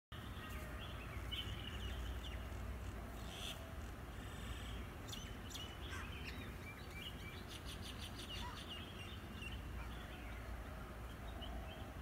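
Birds chirping and calling in short scattered notes, with a fast rattling series of ticks a little past halfway, over a steady low rumble.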